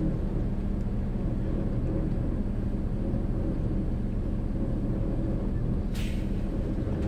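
Bus engine idling steadily, heard from inside the cabin, with a short sharp hiss of air about six seconds in.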